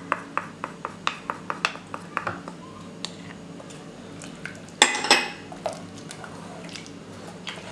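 A wooden spoon tapping and scraping spices off a small plate into a pressure-cooker pot, making a quick run of light clicks for the first two seconds or so. It then stirs in the pot, with one louder clatter against the pot about five seconds in.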